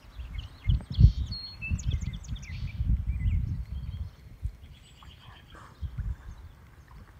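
Small birds chirping and twittering in the background, busiest in the first couple of seconds and again about five seconds in. Under them runs a low, uneven rumble of wind buffeting the microphone, loudest about a second in.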